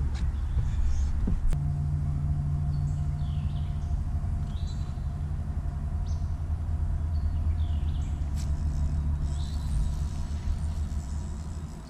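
A steady low rumble, joined about a second and a half in by the even hum of a bow-mounted electric trolling motor, with short high bird chirps over it.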